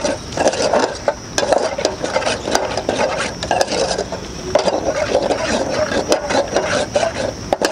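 Metal ladle stirring and scraping around a small metal saucepan in repeated strokes, with light clinks against the pot, as green curry paste and coconut milk heat toward a simmer.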